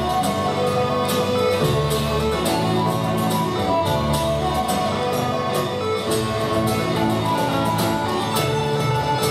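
Live band music: sustained melody notes over a steady run of drum strokes.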